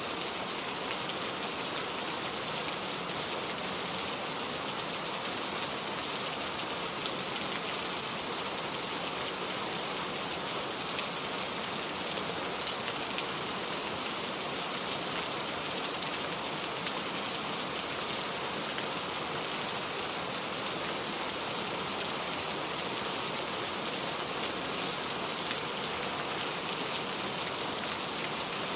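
Steady rain falling: an even hiss of many drops, with a few slightly louder drips now and then.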